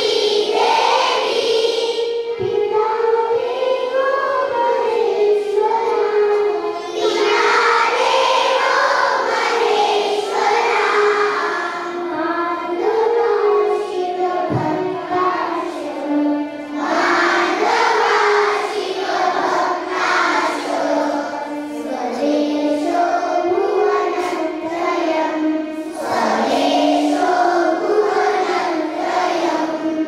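A small group of young girls singing a prayer together in unison into microphones, their voices held in long, slowly moving notes.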